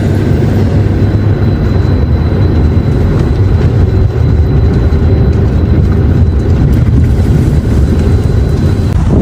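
Loud, steady low rumbling noise without rhythm or clear pitch.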